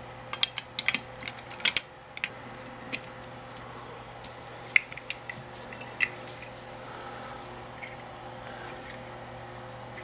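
Light metallic clicks and taps of a KLOM manual lock pick gun's metal parts being handled and fitted back together: a quick run of clicks in the first two seconds, then a few single clicks.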